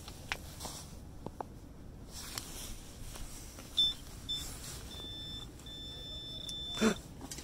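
Handheld metal-detecting pinpointer probe giving a single high-pitched beep: two short beeps, then a long steady tone as it closes on a coin lying in wood chips. This is the pinpointer signalling that the target is found. A brief rustle of wood chips follows near the end.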